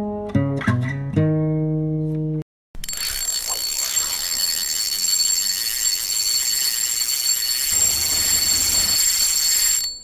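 A short plucked guitar riff that ends on a held note, cut off about two and a half seconds in. After a brief break comes a steady hiss with two thin, high, steady tones in it.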